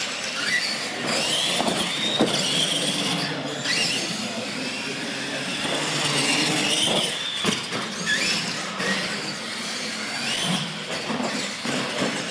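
Electric radio-controlled monster trucks driving on a concrete floor. Their motors and gears make a whine that rises and falls in pitch as they speed up and slow down.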